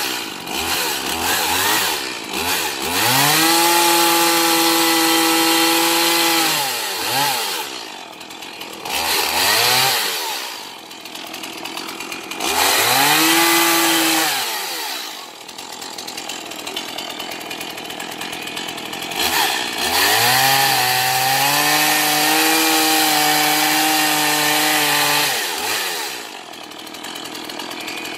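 Stihl MS180 two-stroke chainsaw revved up to full throttle and held there several times, each for a few seconds, dropping back to idle in between. The longest hold comes near the end.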